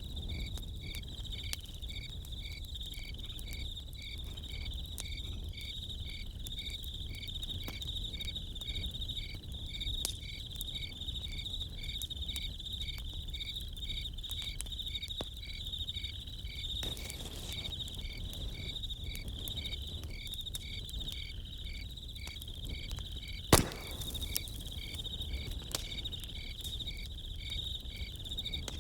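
Crickets chirping in a steady, evenly pulsing high trill over a crackling campfire with scattered small snaps. One sharp, loud pop comes from the fire late on.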